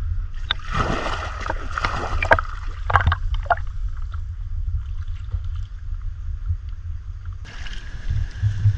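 Water splashing as people wade and chase fish toward a net in a shallow stream, in several bursts during the first few seconds, over a steady low rumble.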